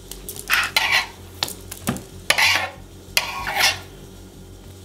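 Mexican lancehead rattlesnake thrashing on a wooden tabletop under a snake hook: several short hissing rasps and one sharp knock near the middle.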